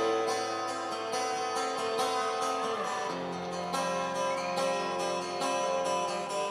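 Instrumental opening of a recorded song, led by plucked string notes, with a lower sustained part coming in about three seconds in.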